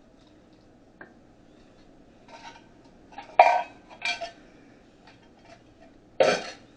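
A utensil clanking and scraping against a metal can and skillet as canned tomatoes and green chilies are emptied into the pan: a few separate sharp clanks, the loudest about three and a half and about six seconds in.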